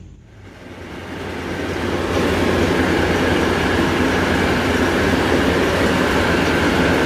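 A mini rice thresher running, its spiked threshing drum spinning with a steady mechanical rumble and rattle. It grows louder over the first two seconds, then holds steady.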